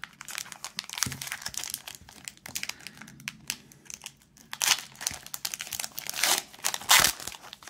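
Foil Pokémon booster pack wrapper crinkling in the hands and being torn open across the top, with a few louder rips in the second half.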